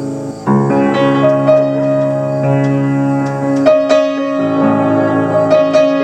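Piano ballad playing sustained chords, with fuller, louder chords coming in about half a second in.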